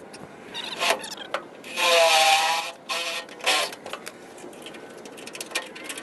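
Electric drill cutting out spot welds in rusted sheet-metal body panel, running in short bursts with clicks of the bit catching; the loudest burst, about two seconds in, rings with a metallic squeal.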